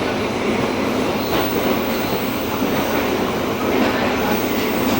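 Passenger train running at speed, heard from inside the carriage: a steady rolling rumble of wheels on rail.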